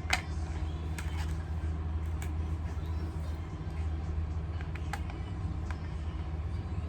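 A steady low hum with a few short, sharp clicks and taps over it, the loudest just after the start.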